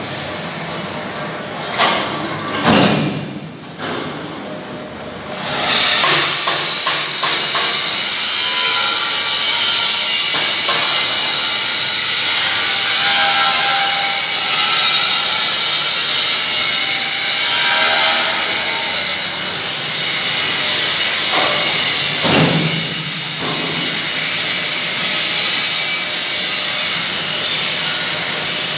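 Sargodha-model wheat thresher running: a few knocks, then a loud, dense rushing hiss that comes up suddenly about five seconds in and holds steady.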